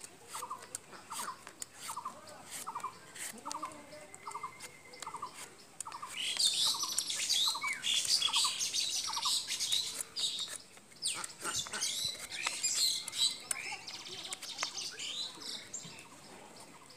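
Small birds chirping and twittering, loudest from about six seconds in, over a short call repeated about two or three times a second for the first ten seconds. Faint clicks and scrapes of a metal peeler stripping the skin off a raw green mango.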